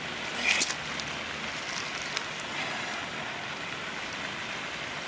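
Lake water sloshing and trickling around a wet carp retainer sling as it is lowered into the margin to release a small common carp. A brief splash about half a second in and a sharp tick a little after two seconds stand out over the steady watery hiss.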